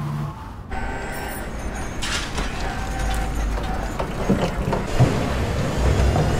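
Vehicle and industrial warehouse noise: a steady mechanical background with a few sharp knocks about four and five seconds in, and a low engine rumble that grows near the end.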